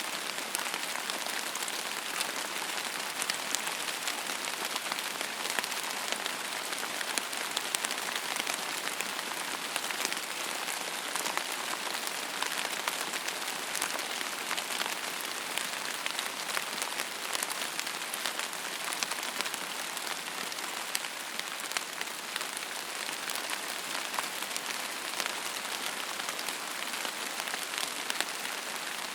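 Steady rain: an even hiss full of the quick ticks of individual drops, with no change in strength.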